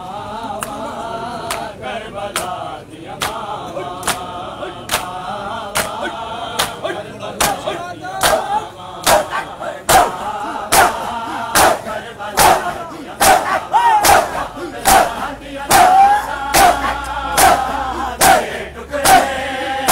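Crowd of men doing matam, slapping their bare chests together in a steady rhythm of sharp slaps a little more than one a second, while many voices chant a Punjabi noha. The slaps and chanting grow louder after about eight seconds.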